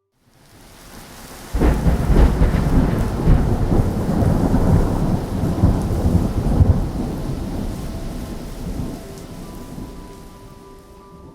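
Thunder sound effect: a deep rolling rumble that breaks in suddenly about a second and a half in, then slowly dies away.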